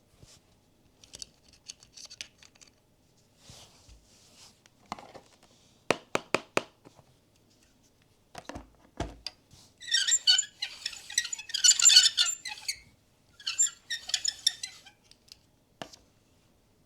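Blind-box packaging being handled and unwrapped: soft rustling and a quick run of sharp taps and clicks, then loud crackly crinkling of plastic wrapping from about ten seconds in, in two spells.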